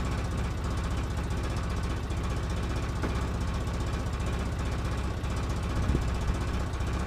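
2005 Polaris Ranger XP 700's twin-cylinder EFI engine idling steadily just after starting on a rebuilt fuel system, not yet smoothed out; the owner puts the unevenness down to air in the fuel system and some bad gas.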